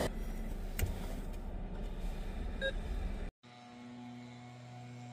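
Low, even rumble of a car heard from inside the cabin, with a single click about a second in and a short beep near the middle. About three seconds in it cuts off abruptly, and quiet background music with held tones follows.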